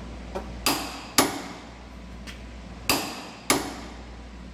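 Sharp metallic clicks and clanks from a torque wrench and a pipe wrench as a Dana 30 axle's pinion nut is tightened to about 160 foot-pounds. There are four loud strikes in two pairs, each pair about half a second apart, with fainter ticks between them.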